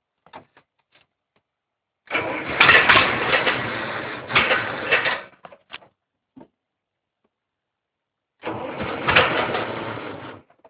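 Case 770 tractor's gas engine being cranked by the starter in two bursts, about three seconds and then about two seconds, each stopping without the engine catching and running: a hard start.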